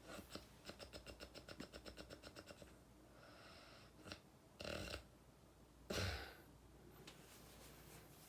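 A person snoring: a fast rattling snore of about eight pulses a second for the first few seconds, then two loud snorts a little over a second apart past the middle.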